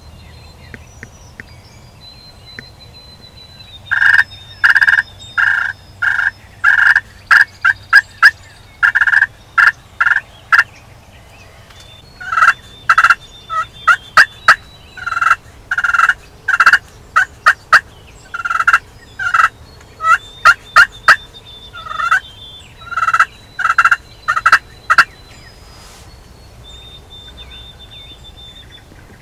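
Turkey yelping in several runs of about four to eight short, loud notes, with brief pauses between runs.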